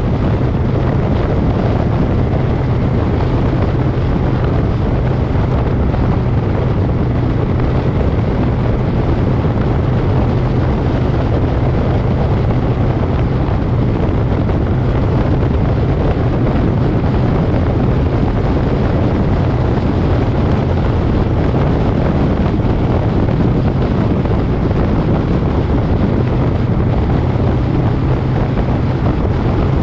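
Moto Guzzi Griso's V-twin engine running at a steady cruise, mixed with wind noise on the microphone.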